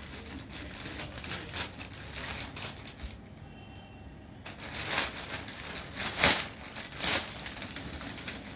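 Packaging of a gaming keyboard being handled and unwrapped: a run of irregular rustles and scrapes, with louder ones about five, six and seven seconds in and a quieter spell around three to four seconds in.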